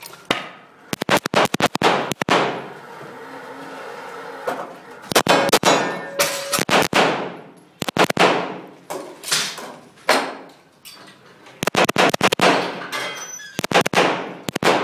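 Strings of rapid gunshots in quick groups, each crack followed by long echoing ringing under a covered range, mixed with metallic clangs.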